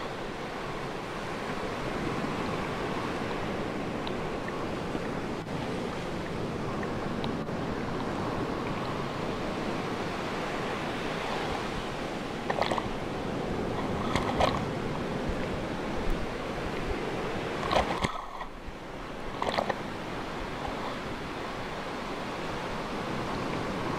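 Sea waves washing steadily in a continuous wash of surf, with four brief sharp sounds in the second half.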